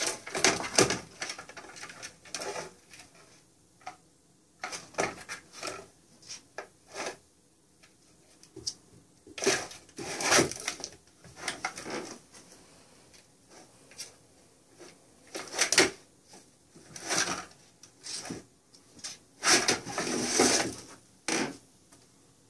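A cat pawing at a round plastic cat toy and shoving it across a hardwood floor: irregular bursts of scraping and plastic clatter.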